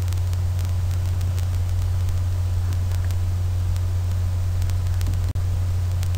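Steady low electrical hum with an even hiss, the background noise of the recording. It cuts out for an instant about five seconds in.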